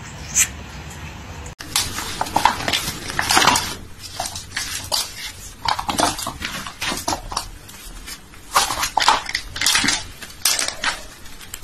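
Clattering and clinking of hard objects knocking together, in dense irregular bursts that start about a second and a half in.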